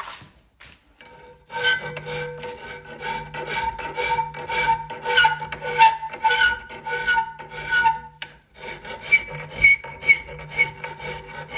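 Hand filing on a Mk1 Escort's steel bumper, rapid rasping strokes about two to three a second with a steady ringing tone under them. The filing stops briefly a little past the middle and then starts again.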